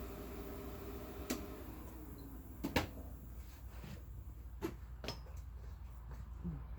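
A few scattered sharp clicks and knocks, like metal parts or tools being handled, over a steady low hum.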